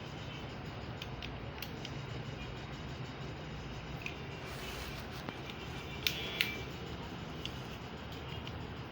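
A few light clicks and taps as a hair clipper blade is set in place, two of them close together about six seconds in, over a steady low hum.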